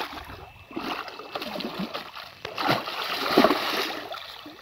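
A large hooked tambacu thrashing at the water's surface, splashing hard in irregular bursts that die down near the end as the fish tires.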